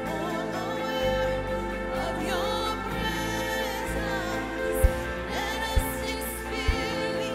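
Live worship band music: a held keyboard pad with a voice singing over it, joined about five seconds in by single low drum beats about once a second.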